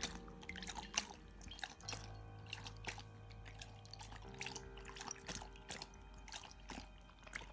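A dog lapping water from a stainless steel bowl: an irregular run of wet laps and clicks, a few a second.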